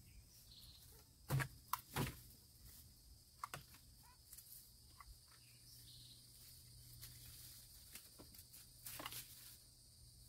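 Faint rustling, crinkling and a few short clicks as a trash grabber picks litter out of the leaf-covered ground and drops it into a plastic-bagged bin, with a few footsteps in the leaves. Insects drone steadily and faintly behind it.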